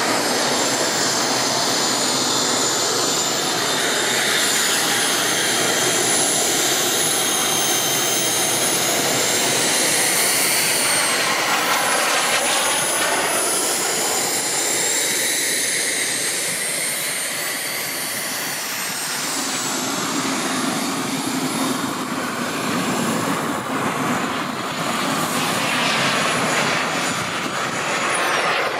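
Turbine engine of a Carf MiG-15 radio-controlled model jet running in flight, a steady jet noise with a high whine that glides up and down in pitch as the jet passes and turns away. The sound eases off a little past the middle, then builds again.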